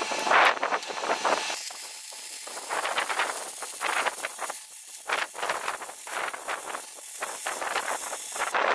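Electric welding arc crackling and hissing as a bead is laid on a steel rear axle; the arc catches about a second and a half in and runs steadily until just before the end.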